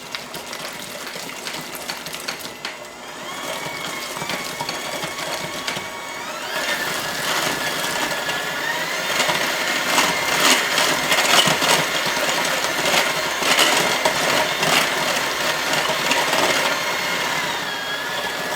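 Electric mixer running, its motor whining steadily while the beaters beat egg, water and vanilla into creamed butter and sugar, with quick clicks of the beaters against the bowl. The motor's pitch shifts about six seconds in and the sound grows louder.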